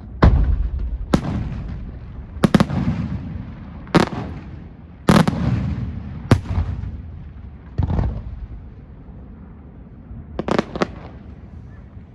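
Aerial fireworks shells bursting: about ten loud bangs spaced roughly a second apart, each trailing off in a rumbling echo, with a quick pair of bangs near the end.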